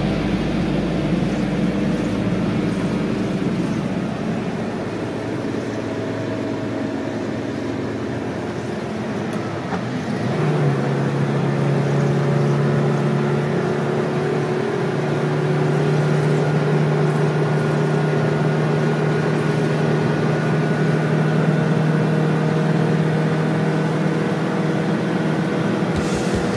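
Steady road and engine noise inside a car moving at highway speed, with a hum that comes up louder about ten seconds in and holds steady.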